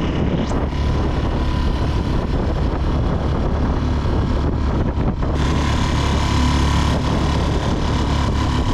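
Mercury F3.5 single-cylinder four-stroke outboard motor running steadily, pushing an inflatable boat along. It keeps running without cutting out, which fits the owner's suspicion that his earlier stalling came from a wrongly fitted extra fuel filter, now removed.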